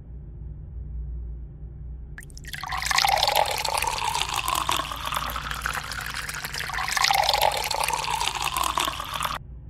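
Water from a kitchen tap running into a sink: it starts about two and a half seconds in, runs steadily, and cuts off suddenly near the end. A low steady hum lies underneath.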